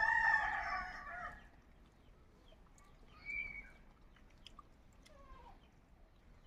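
A rooster crowing once, a loud call with several pitches that fades out about a second and a half in. A short, fainter call follows about three seconds in.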